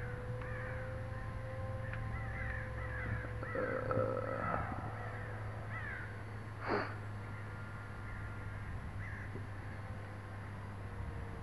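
Faint steady drone of a small electric RC foam profile plane's motor and propeller overhead, its pitch rising slightly and then falling away, under birds calling repeatedly. A single sharp click stands out about two-thirds of the way through.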